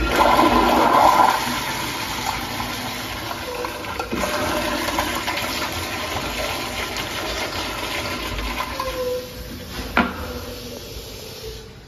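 Commercial toilet with a manual flushometer valve flushing: a loud rush of water at first, then a steady rush as the bowl refills, tapering off near the end. A brief whine and a sharp click come about ten seconds in.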